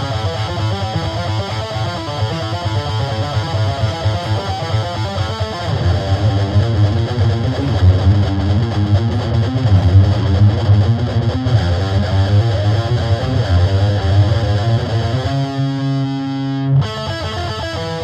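Distorted electric guitar played through a small Peavey amplifier and picked up by an AT2035 condenser microphone, playing metal power-chord riffs. About fifteen seconds in, one chord rings out for a second and a half, then cuts off sharply and the riffing starts again.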